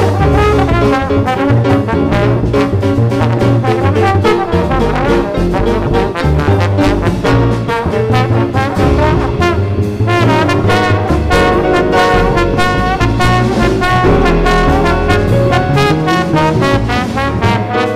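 Live jazz quartet playing: trombone leading over grand piano, double bass and drum kit.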